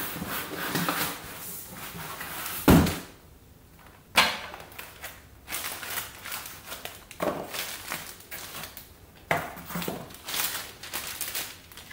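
Polystyrene foam packing and cardboard box handled while an electronic scale is unpacked: scraping and rustling, with a heavy thunk about three seconds in and several lighter knocks as pieces are pulled apart and set on the bench.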